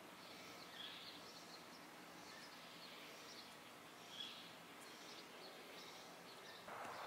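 Faint outdoor background hiss with a few distant bird chirps now and then; a louder steady hiss comes in near the end.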